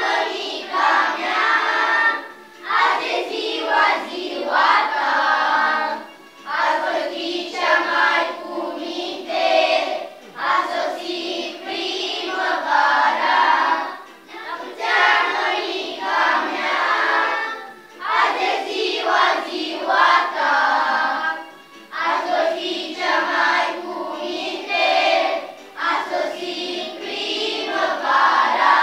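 A group of young children singing a song together in unison, in phrases of about four seconds with short breaks between them.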